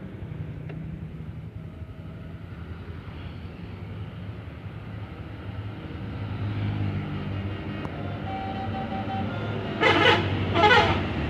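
Coach engine running steadily, then two short, loud horn blasts close together near the end.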